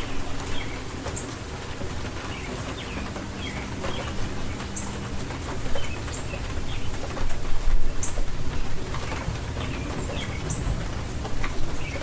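Steady rain hissing, with birds chirping over it: short high chirps every second or two.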